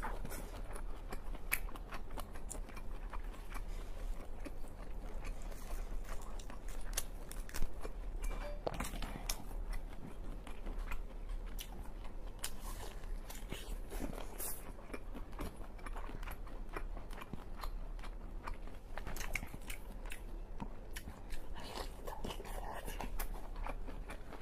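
Close-miked chewing and biting of steamed red rock lobster meat, with many small wet mouth clicks scattered throughout.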